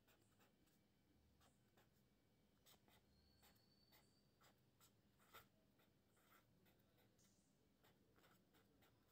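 Very faint scratching of a marker pen writing on paper: a scatter of short, soft strokes over near silence.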